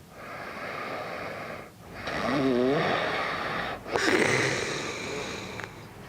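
A sleeping man breathing loudly and snoring while he wears an anti-snoring tongue sleeve: three long, noisy breaths about two seconds apart, with a wavering snore tone in the second and third.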